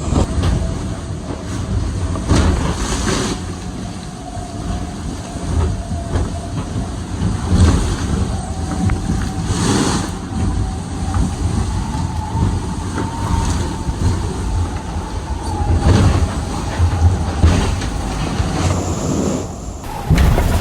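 IMOCA 60 racing yacht under sail downwind: a loud, steady low rumble of the carbon hull with a wavering hum from the foils, and water rushing past the hull in louder washes every few seconds.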